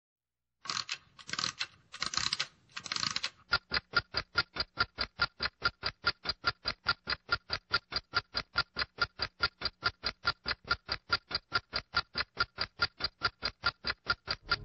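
Sound effects: four short bursts of rapid typing-like clatter, then a fast, even clock ticking, about four to five ticks a second, like a stopwatch counting down.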